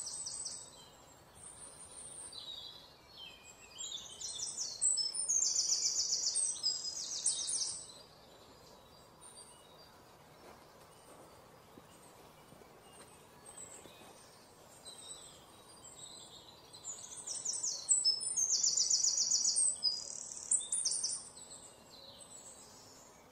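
Small birds singing in two spells of high, rapid trills, with a quieter stretch in between that holds only faint outdoor background noise.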